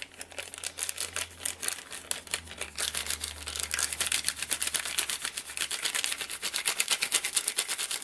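Small plastic zip bag crinkling as it is rubbed and kneaded between the fingers to mix pigment powder, gum arabic and water into paint: a fast, continuous run of crisp ticks.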